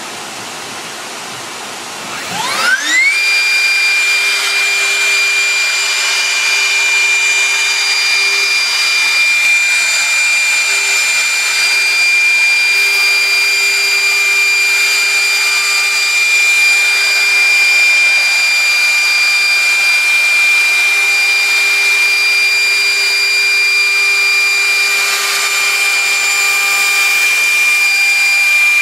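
CNC router spindle motor spinning up about two seconds in, its pitch rising fast, then running at speed with a steady high-pitched whine.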